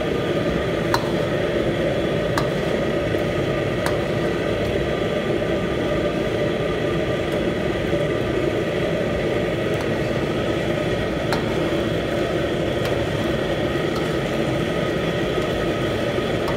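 Steady whir of commercial kitchen equipment running, with a few light clicks as a metal ladle touches the steel pan.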